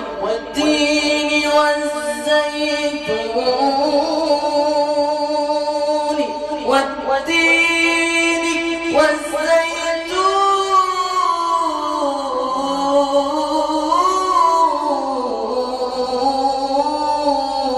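Male voice singing an Islamic ibtihal, drawing out long ornamented notes that waver and glide up and down in pitch without distinct words.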